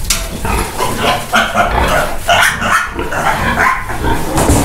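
Piglets squealing and an agitated sow calling in short, repeated cries as the piglets are caught and lifted out of the pen.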